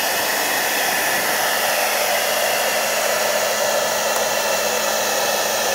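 Hand-held blow dryer running steadily, blowing hot air: a constant rush of air with a steady motor hum.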